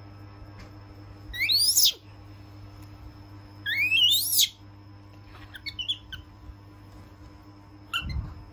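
Baby macaque calling: two loud, high squeals that rise in pitch, about two seconds apart, then a few shorter, fainter chirps.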